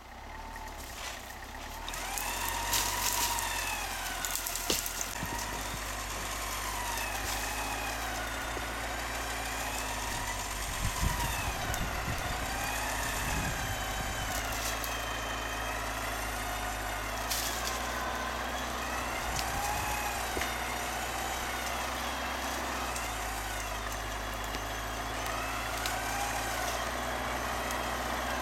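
Hyundai Galloper 4x4 engine running low and steady, with a whine over it that rises and falls in pitch again and again. A couple of sharp knocks stand out, about five seconds in and again around eleven seconds.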